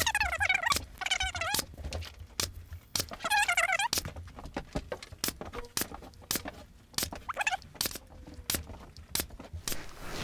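Pneumatic upholstery staple gun firing in a quick series of sharp clicks, about two a second, as staples are driven through Dacron wrap into a wooden ottoman frame. High-pitched warbling chirps come in among the first few shots and once more later on.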